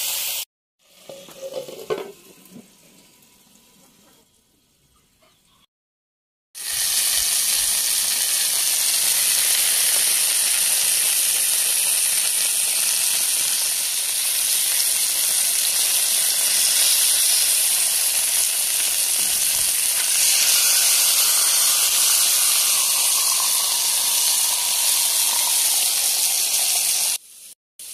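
Chicken pieces frying in hot oil in a cast iron skillet: a steady, loud sizzle. It comes in about seven seconds in, after a quieter stretch, and cuts off just before the end.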